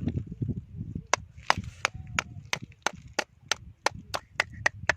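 A tool striking oyster shells on rock in a steady series of sharp knocks, about three a second, as oysters are chipped and pried loose.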